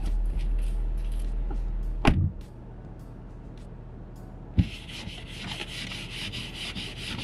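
A thud about two seconds in as the car door shuts, then a knock on the glass and a sleeved hand rubbing frost off the windshield, a steady scratchy rubbing heard from inside the car through the glass.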